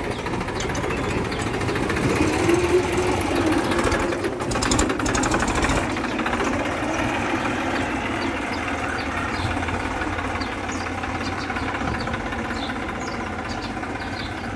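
Massey Ferguson 1035 DI tractor's three-cylinder diesel engine running under load as it pulls a loaded trailer. It grows louder a couple of seconds in, with a fast rattle for about two seconds in the middle, then eases off as the tractor moves away.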